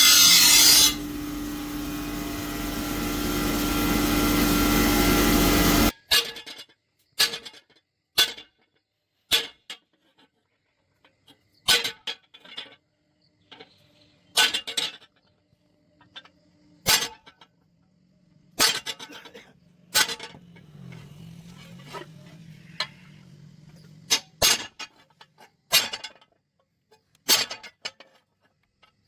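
Metalworking in a blacksmith's shop: a loud, steady grinding or cutting noise that stops abruptly about six seconds in, then scattered sharp metallic clinks and taps, roughly one every second or two.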